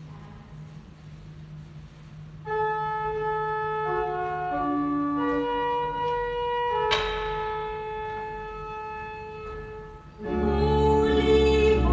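Church organ playing a slow melody of held notes, with a sharp click about seven seconds in. Near the end, fuller sung music comes in louder over it.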